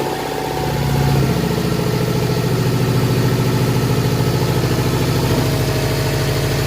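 2005 Subaru Impreza WRX STI's turbocharged 2.5-litre flat-four idling on its first start since a new cold air intake and blow-off valve went in. It runs slightly higher for about the first second, then settles into a steady, pulsing idle.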